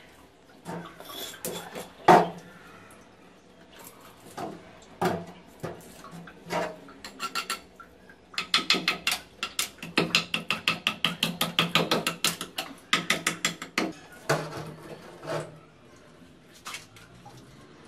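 Masonry hand work on granite counter strips: scattered knocks and clunks as stone pieces are handled and set down on the counter, then a run of quick, even strokes, about four a second, for some five seconds in the middle.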